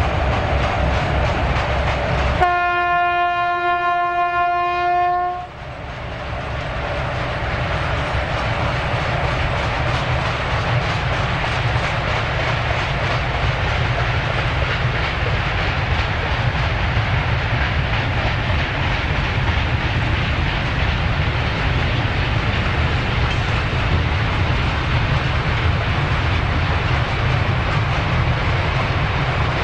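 Two DR class 120 (Soviet M62) diesel locomotives with 14D40 two-stroke V12 engines working under load on an uphill grade. About two and a half seconds in a locomotive horn sounds one steady blast of about three seconds; after it the freight wagons roll past with a steady rumble and wheel clatter.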